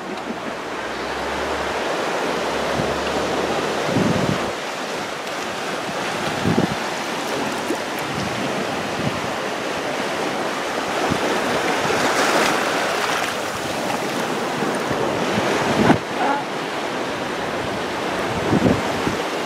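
Sea waves washing onto a beach in a steady rush, with wind buffeting the microphone in a few low bumps.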